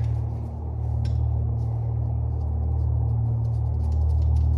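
Steady low hum of a running machine, with a few faint light clicks over it.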